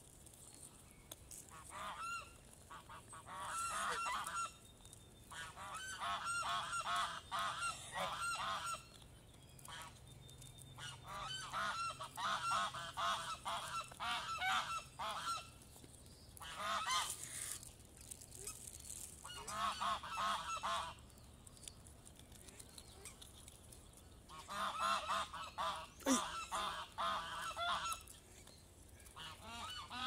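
Waterfowl honking in repeated bursts of quick calls with short pauses between, as the birds crowd in for food.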